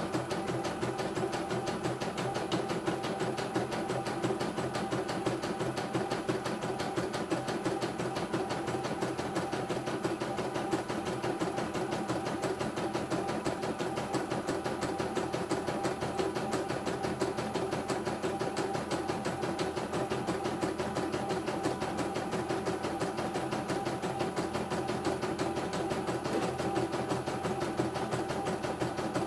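CNY E900 computerized embroidery machine stitching out a design: the needle runs in a rapid, even stitching rhythm over a steady machine hum as the embroidery unit shifts the hoop.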